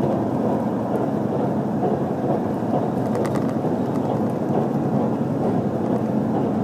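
Running noise of an HC85 hybrid diesel train heard inside the passenger cabin: a steady rumble of the train at speed, with a brief cluster of clicks about three seconds in.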